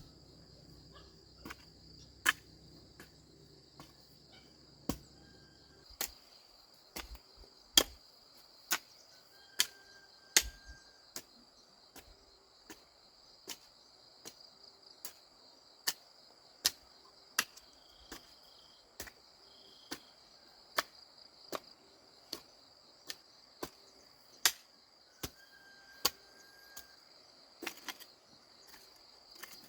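Crickets chirring steadily, with sharp, single knocks about once a second over it.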